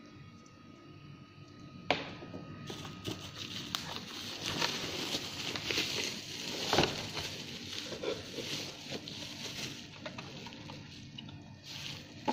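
Plastic bubble wrap rustling and crinkling as a wrapped digital scale is handled and pulled out of its cardboard box. A sharp click comes about two seconds in, and a louder crack near the middle.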